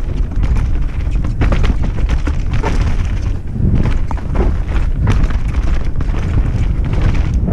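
Loud wind rumble buffeting a helmet-mounted camera at speed, with frequent short clattering knocks from the bike jolting over a rough, wet dirt trail.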